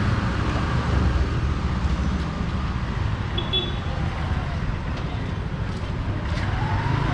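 Street traffic noise: a steady low rumble of passing vehicles, with a rising engine tone near the end.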